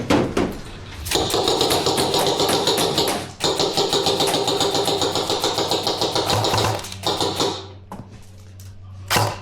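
Airsoft rifle firing on full auto in two long bursts of about two and three seconds, a fast stream of shots with a mechanical whir under it.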